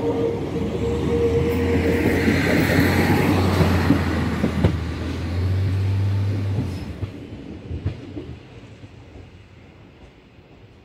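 MÁV class 117 (Bzmot) diesel railcar running past and pulling away: a steady low diesel drone with wheels rumbling on the rails. The engine note drops out after about seven seconds and the rail noise fades off.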